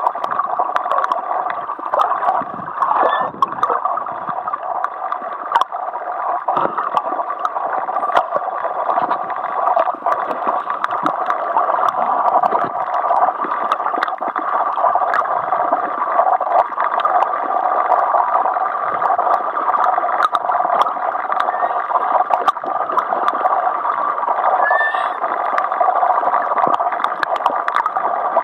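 Underwater sound: a steady two-note hum runs without a break, with many short clicks and crackles over it. A brief rising chirp comes near the end.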